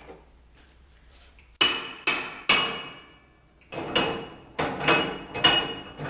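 Seven sharp metal strikes in two quick runs, three and then four, each ringing briefly, like hammer blows on metal during work on the wheel and tire changer.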